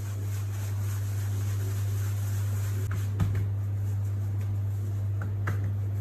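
Steady low machine hum in a kitchen, with a few soft taps and one dull thump about three seconds in as hands press and stretch pizza dough on a marble counter.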